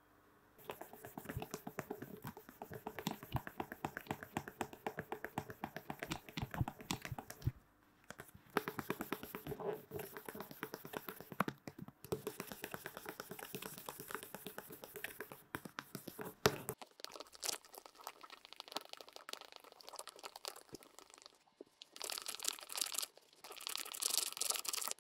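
Sandpaper rubbed by hand over a stick of katsuobushi (dried skipjack tuna) in quick back-and-forth scratching strokes, stopping briefly twice. In the second half the scratching turns thinner and lighter, then grows stronger again near the end.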